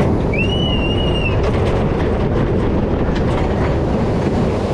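Wooden side-friction scenic railway train rolling along its track: a steady rumble with scattered clattering clicks from the wheels. A brief high squeal comes about half a second in.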